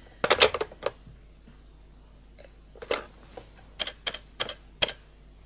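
Telephone handset hung up with a short clatter, then about seven separate clicks a couple of seconds later as a new number is dialled.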